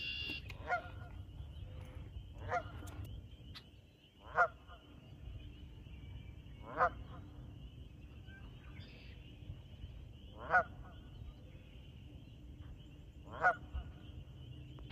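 Canada geese honking: single honks every two to four seconds, about six in all, the loudest four from about four seconds in.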